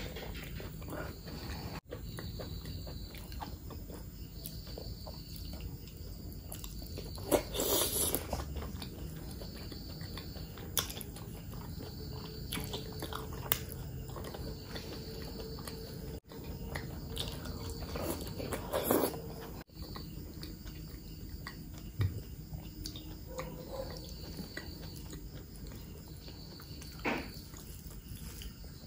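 Close-miked, wet chewing and biting of spicy mutton fat curry eaten by hand, with a couple of louder smacking mouth noises about a third and two thirds of the way in. A faint high insect chirp pulses regularly behind it.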